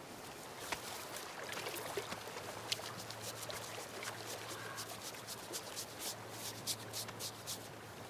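Outdoor ambience beside a brook: a soft trickle of water, with scattered small clicks and rustles that come more often near the end, and a low steady hum from about a second and a half in.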